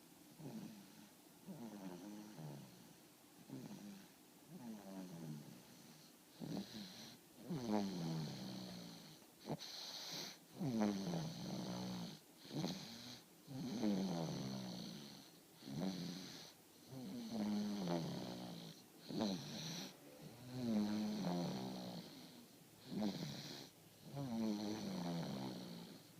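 A person snoring in a steady rhythm of sleeping breaths, each snore a rattling, buzzing tone that falls in pitch. The snores grow louder after the first few seconds.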